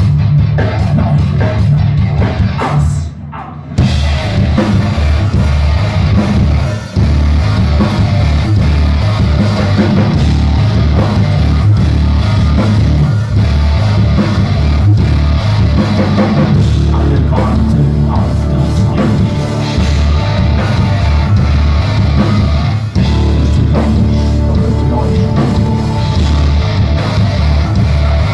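Rock band playing heavy rock on drum kit, distorted guitar and bass, loud and driving. The full band drops out briefly about three seconds in, then comes back in hard.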